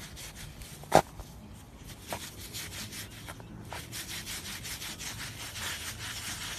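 Dachshund digging in damp sand, a continuous run of quick scraping and rasping strokes as it paws and noses into the hole. A sharp knock stands out about a second in.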